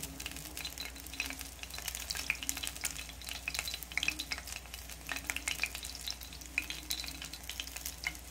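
A tempura-battered fritter of grasshoppers and hornets frying in oil in a small cast-iron skillet: a steady sizzle with frequent small, irregular pops and crackles.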